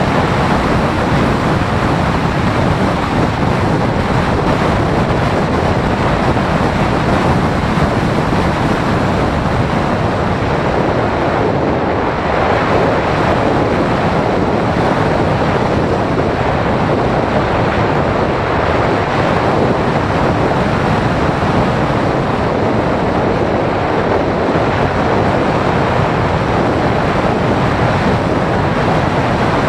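Steady rush of airflow over the microphone of a camera mounted on a Phoenix 1600 model glider in flight: a loud, even noise with no tone in it.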